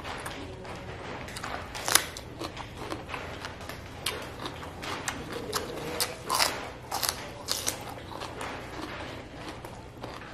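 Crisp crunching bites into a raw cucumber and wet chewing, with one sharp loud crunch about two seconds in and a quick run of crunches in the middle.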